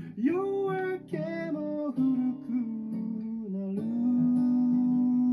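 Background music: a song sung over acoustic guitar, the voice sliding between notes and then holding one long note from about two-thirds of the way through.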